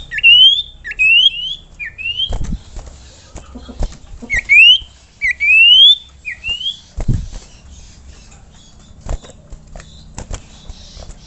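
Sirtu, a cipoh (iora), singing: a series of clear whistled notes that each slide upward, given in quick succession in the first few seconds and again a few seconds later. Sharp clicks or knocks and a low hum sound between the notes, and the song stops in the last few seconds.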